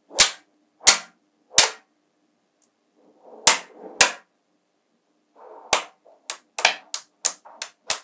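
Magnetic balls snapping together with sharp clicks: three evenly spaced clicks, then two more over a soft rattle of handling, then a quicker run of about seven clicks near the end.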